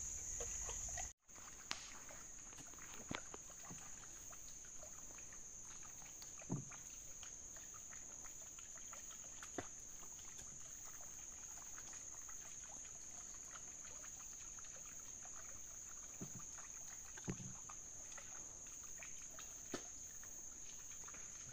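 Faint, steady high-pitched drone of insects in swamp forest, with a handful of short, scattered knocks from a paddle on a narrow wooden boat being paddled through still water.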